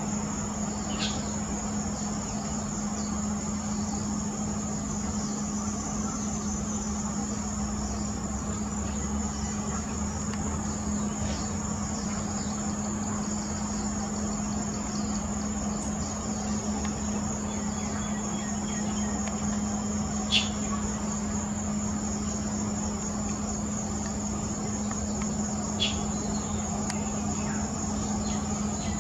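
Steady high-pitched insect chorus over a constant low hum, with two sharp clicks, about twenty and twenty-six seconds in.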